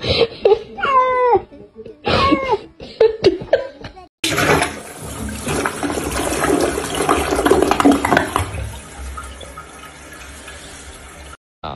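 A few short cat meows in the first seconds, then a toilet flushing: a loud rush of water that starts suddenly, runs for about seven seconds and slowly dies away.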